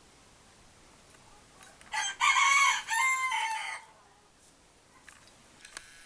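A rooster crowing once: a loud call of about two seconds, starting about two seconds in.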